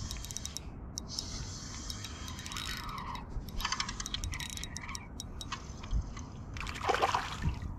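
Spinning reel being wound in against a small hooked snapper, with fine rapid ticking from the reel. A short splash about seven seconds in as the fish reaches the surface.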